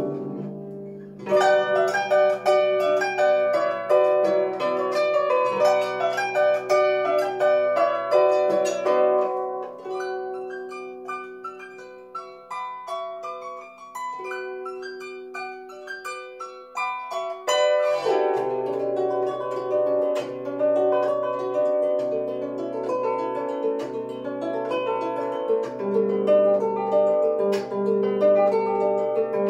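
Solo lever harp playing a flamenco-style piece with quick plucked chords and runs. About a third of the way in it drops to a softer, sparser passage, then comes back loud over a bass note plucked about once a second.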